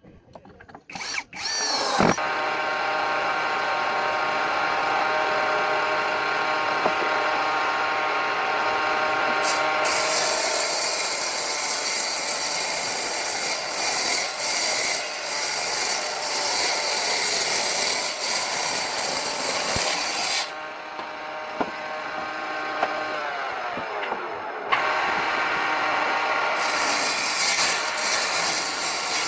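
An electric power tool starts about two seconds in and runs with a steady motor whine. From about ten seconds the whine is joined by loud rasping noise as the tool works wood. This noise eases off briefly a little past twenty seconds and picks up again near the end.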